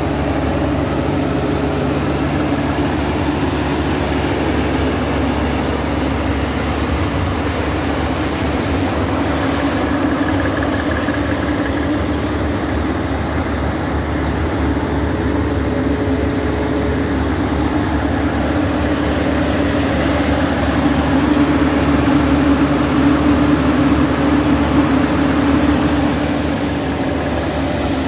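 Ditch Witch JT24 directional drill's diesel engine running steadily, getting a little louder for a few seconds near the end.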